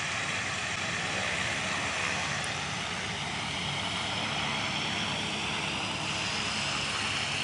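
Light propeller aircraft's piston engine running steadily on the ground, an even drone that holds its pitch.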